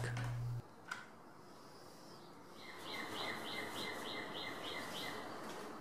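A bird chirping in an even series of short chirps, about three a second, over faint background hiss. A low hum cuts off within the first second.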